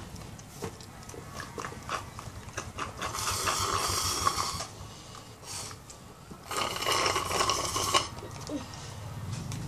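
Slurping the last of a chocolate shake through a plastic straw from a nearly empty cup: two long noisy slurps, each about a second and a half, with scattered small clicks between them.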